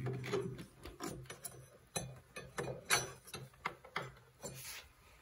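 Irregular metal clicks and light knocks as a Polaris snowmobile brake caliper is handled and slid over its brake rotor.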